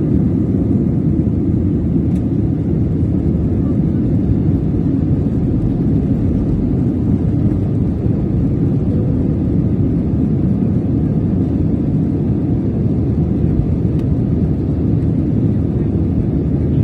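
Airliner cabin noise at a window seat: a steady low rumble of the jet engines and rushing air, unchanging.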